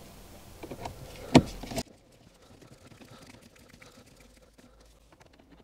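Screwdriver and hands refitting the screen screws in a car dashboard: a few sharp clicks and taps on hard plastic, the loudest about a second and a half in. The background hiss then stops abruptly, leaving faint scattered ticks.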